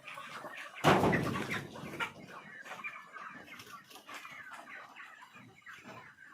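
A flock of kuroiler chickens clucking, many short calls overlapping. About a second in, a loud rustling burst lasts about a second.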